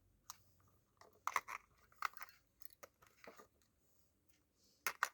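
Plastic remote control being handled: scattered small clicks and scrapes as its battery back cover is opened and two batteries are fitted, with a sharper pair of clicks near the end.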